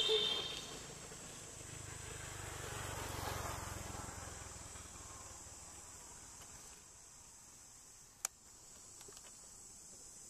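Steady high-pitched drone of insects. A brief loud pitched sound comes right at the start, then a swell of rumbling noise rises and fades, peaking about three seconds in. A single sharp click comes about eight seconds in.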